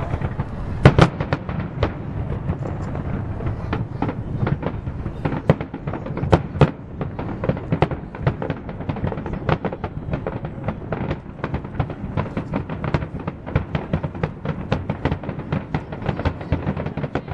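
Aerial firework shells bursting in a continuous barrage of sharp bangs over a low rumble, the loudest about a second in and again at six or seven seconds, quickening to several bangs a second in the second half.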